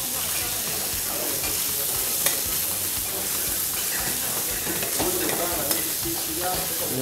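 Chicken pieces sizzling steadily on a hot flat-top griddle, with a metal spatula scraping and turning them and giving a few sharp clicks against the plate.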